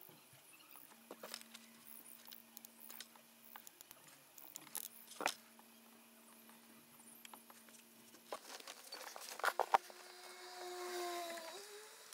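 Faint clicks and rustling of hands handling speaker wiring and plastic trim under a car's rear parcel shelf, with a sharper click about five seconds in and a cluster of louder clicks near the end. A short buzzing tone follows in the last two seconds.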